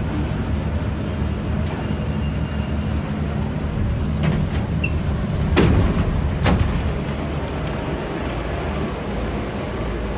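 Steady low rumble of a stopped Concarril NS-88 metro train. About four seconds in there is a hiss, then two sharp clunks about a second apart as the car's sliding doors open.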